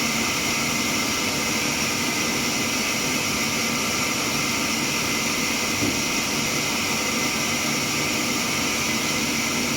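Sawmill saw machinery running at an even, unchanging pitch and level: a constant hiss with a steady hum beneath.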